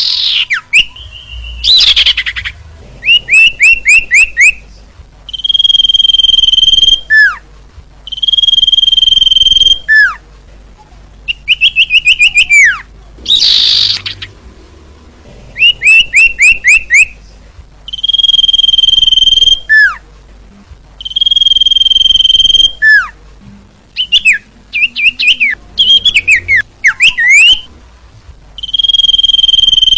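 Sirtu bird song used as a lure call. The phrases repeat about every three seconds: a quick run of four or five chirps, then a long steady high whistle lasting about a second and a half, ending in a sharply falling note.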